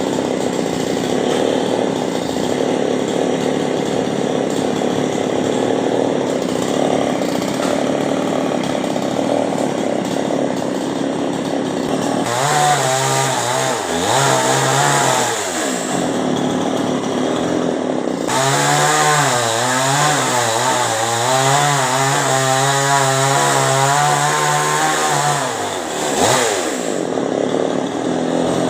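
Chainsaw running steadily, then opened up to full throttle about twelve seconds in. It eases off briefly and is then held at high revs for about seven seconds before dropping back, as when cutting through a coconut palm trunk.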